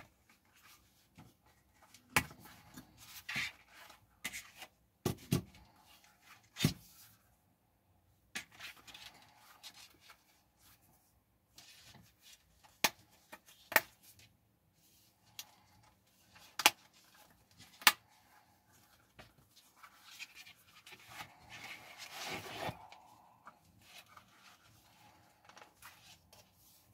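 Leather holster being handled: several sharp clicks of its metal snap fasteners opening and closing, between stretches of leather rubbing and rustling as a pistol is worked in and out of it.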